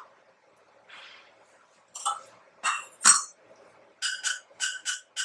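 A steel spoon knocking against a stainless steel saucepan while a spoonful of ghee is put in: a few dull clinks, then about a second from the end five quick, ringing taps on the pan.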